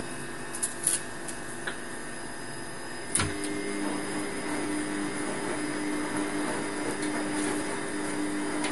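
A steady machine hum with a faint whine. About three seconds in it gets a little louder and a lower humming tone joins it. A few light clicks sound over it.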